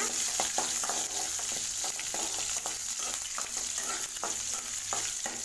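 Green chillies, curry leaves and dals sizzling in hot oil in a kadai while a metal spatula stirs them, with frequent short scrapes and taps of the spatula against the pan.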